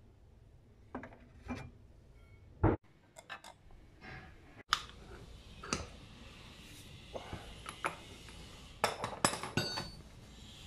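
Steel hand tools clinking and knocking as a socket bar and a steel rod are worked against the differential's pinion flange to break the pinion nut loose. There is one sharp knock about two and a half seconds in, and a flurry of ringing metal clinks near the end as the tools are put down on the concrete floor.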